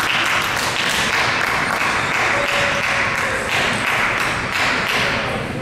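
Table tennis balls clicking against bats and the table, a fast, irregular run of many taps a second that stops abruptly near the end.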